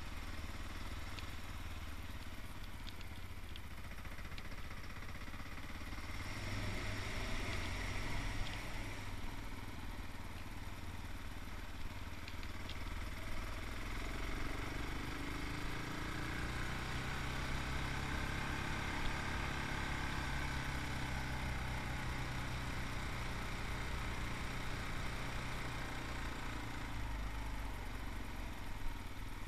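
Yamaha MT-03's 660cc single-cylinder engine running while riding, its revs rising through the middle and dropping back near the end.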